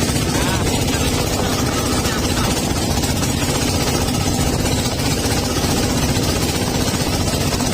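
An engine running steadily at an even speed, with a constant low hum and fast, even firing pulses.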